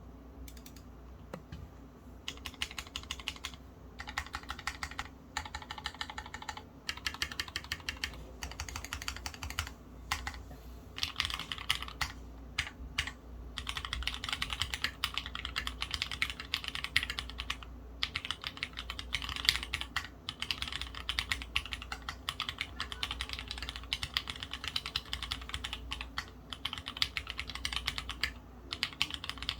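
Typing on an Orion v2.5 custom mechanical keyboard with lubed Gateron Merlot switches, a half FR4 top-mount plate and Leopold keycaps. Quick runs of keystrokes start about a second in and stop briefly every few seconds.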